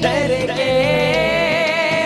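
Voices singing a devotional song in a wavering melody, with a hand-struck frame drum (daf) fitted with metal jingle rings beating underneath.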